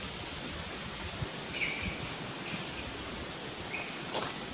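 Steady forest background hiss, with a few short high chirps and a single sharp click near the end.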